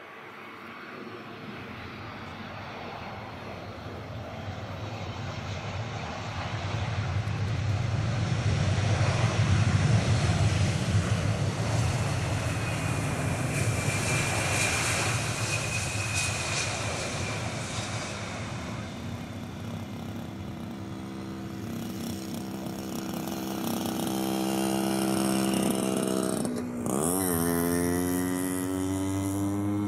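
Airbus A320 jet engines during the landing roll, a broad roar building to its loudest about a third of the way in. A fan whine follows as the airliner rolls past, then the roar eases off. Near the end a steady hum slowly rising in pitch comes in.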